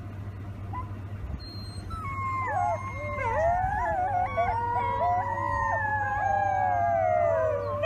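Wolf pups howling together, several high, wavering voices sliding up and down and overlapping, building from about two seconds in. A steady low hum runs beneath.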